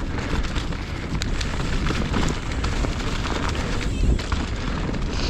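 Mountain bike rolling fast down a leaf-covered dirt trail: wind rushing over the microphone and tyre noise, with small knocks from the bike over bumps.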